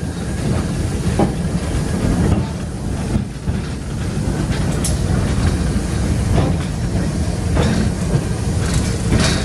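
Flying Scotsman, an LNER A3 Pacific steam locomotive, heard from its footplate while on the move: a steady low rumble of the running locomotive with a few short clicks and knocks scattered through it.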